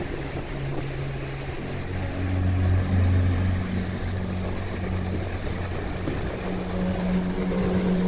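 Small waves breaking and washing up a sandy beach, under a low steady drone that drops in pitch about two seconds in and rises again near the end.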